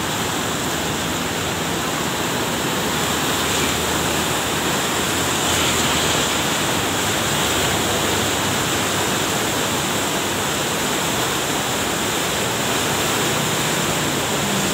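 Steady rushing of a swollen, muddy river in flood after heavy rain, one continuous even noise of fast-moving water.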